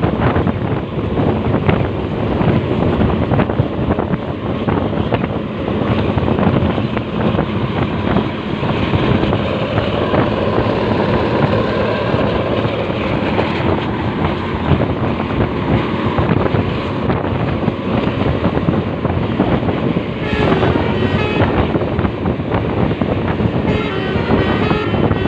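Heavy wind buffeting the microphone over steady road and engine noise from moving traffic. Short tones come through twice near the end.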